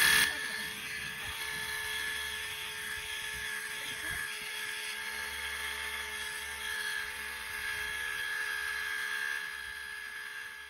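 WORX WG625 cordless power cleaner spraying a jet of water onto a deck: a steady whine from its battery-driven pump over the hiss of the spray, fading out near the end.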